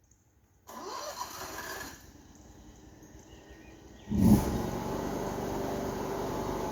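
Mini skid steer engine coming in suddenly about four seconds in and running steadily at a loud, low pitch, after quieter, shorter stretches of noise earlier on.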